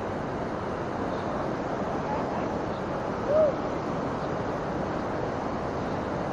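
Steady rush of flowing stream water, with one brief chirp about three seconds in.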